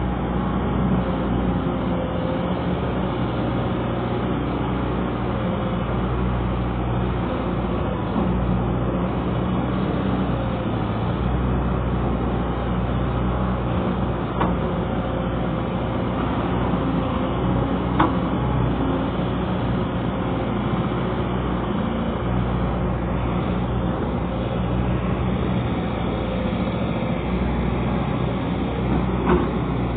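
Excavator's diesel engine running steadily under work, with three short sharp knocks, the loudest just past halfway.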